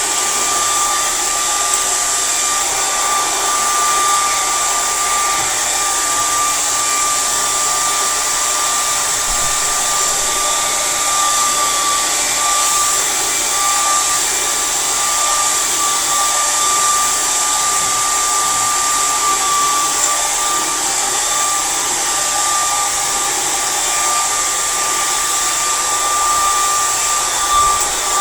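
Handheld blow dryer running steadily on natural hair: a constant rush of air with a steady whine.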